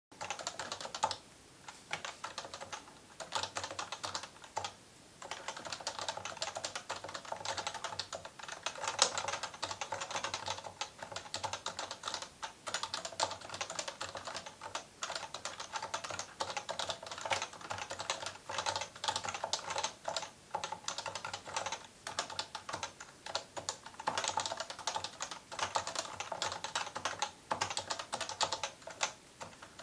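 Fast typing on an electrostatic capacitive (Topre-type) keyboard: a dense run of keystrokes with a few short pauses, one about a second and a half in and another around five seconds.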